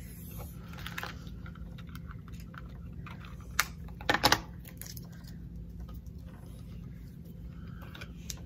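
Paper being handled and pressed down onto a card: soft rustling with a few light taps and clicks, the sharpest about three and a half and four seconds in, over a low steady hum.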